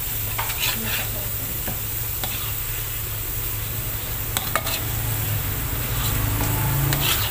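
A metal spatula stirs and scrapes a thick chili spice paste around a metal wok while the paste sizzles steadily in oil. A few sharp clicks and scrapes come from the spatula against the pan. The spice paste is being fried and kept moving so it does not scorch.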